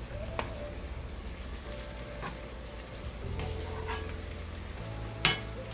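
Salmon simmering in an adobo sauce of vinegar and soy sauce in a pot, with a faint sizzle and a few light clicks of a utensil against the pot; a sharper click comes about five seconds in.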